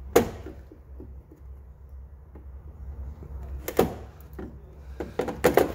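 Sharp clicks and knocks of needle-nose pliers prying plastic wiring-harness push clips out of holes in a truck bumper: one sharp click just after the start, another about midway, then a quick run of several near the end, over a low steady hum.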